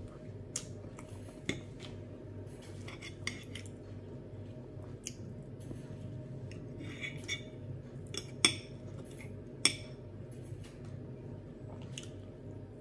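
Metal fork and knife clinking and scraping against a glass plate while food is cut and picked up: scattered light clicks, with two sharper clinks about two-thirds of the way through.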